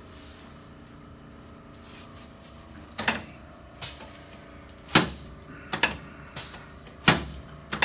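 A padded chiropractic table knocking and clicking as a patient rolls over onto her back. A steady room hum plays alone for about three seconds, then a run of sharp knocks comes roughly every half second to a second.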